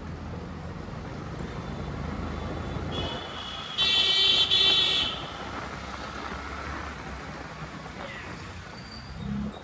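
A vehicle horn honks over steady road and engine noise, faintly about three seconds in, then loudly for about a second.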